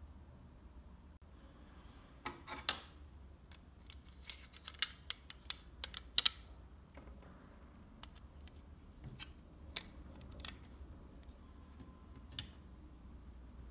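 Small sharp clicks and taps of a scale model pickup's plastic chassis, wheels and metal axle being handled and fitted together, many in quick succession in the first half, a few scattered near the end.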